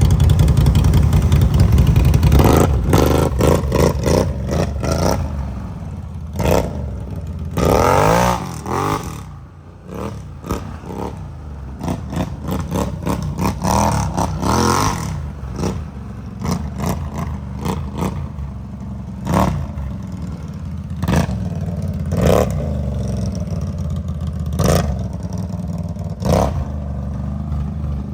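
ATV engine running under throttle on a dirt trail, revving up and easing off several times, loudest in the first couple of seconds. It comes with repeated short knocks and rattles.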